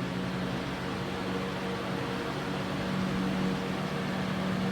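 A 20-inch box fan running steadily on medium speed: an even rush of air with a constant low hum under it.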